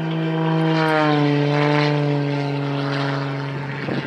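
Piston engine and propeller of a single aerobatic plane droning overhead as it pulls through a tight loop, the pitch dropping about a second in.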